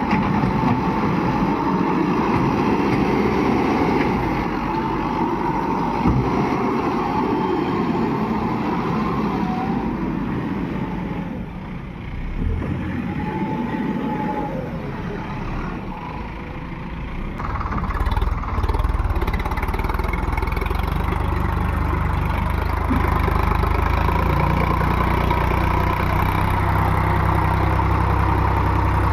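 Heavy diesel machinery engines running. About two-thirds of the way in, a closer, steadier low engine sound takes over and runs evenly.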